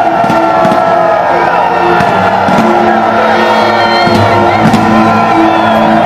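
Loud music with steady held notes over a large crowd cheering and whooping, many voices sliding down in pitch at once.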